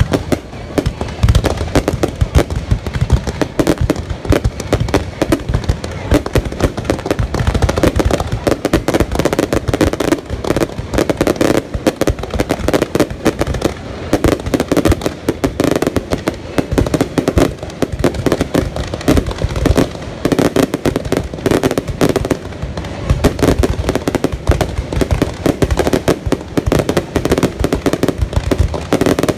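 Fireworks going off in a continuous, dense barrage of bangs and crackles with no break.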